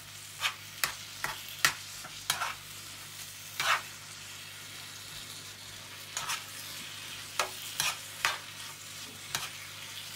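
A spatula scraping and knocking against a frying pan as chicken, onion and flour are stirred into a paste, with irregular sharp strokes over a steady low sizzle of frying.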